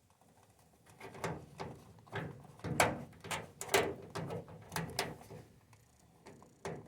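Irregular metal knocks, clunks and scraping as a furnace part is worked and pushed back into place in the sheet-metal cabinet, with a few louder knocks in the middle.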